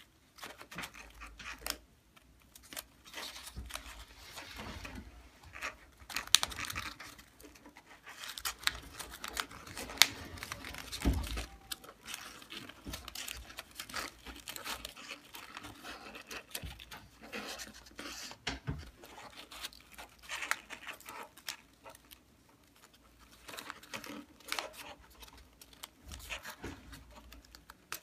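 Paper rustling and crinkling as hands press and shape the folded petals of a modular origami lotus, with irregular crisp clicks and scrapes of paper on paper. Two sharper clicks stand out about six and ten seconds in.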